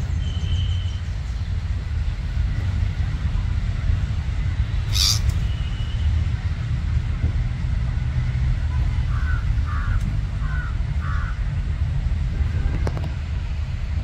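Steady low outdoor rumble, with a few short bird calls over it: a brief high note near the start and four short calls about two-thirds of the way through.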